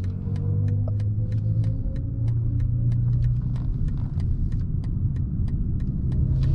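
Low rumble of an electric car under way heard from the cabin, with the BMW i7's synthetic drive sound as a faint tone slowly rising in pitch as the car gathers speed. A regular clicking, about three clicks a second, runs over it.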